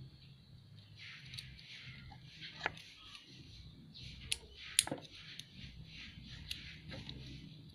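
Plastic wiring-harness connectors being handled, giving a few sharp clicks and taps, the loudest a little under five seconds in, over a steady low hum.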